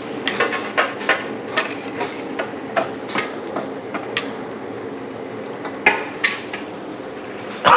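A spatula clanks and scrapes against a big wok as a large batch of vegetable capcay is stirred to work in cornstarch slurry that thickens the sauce. The knocks come irregularly, two or three a second at first and sparser later, over a steady hum.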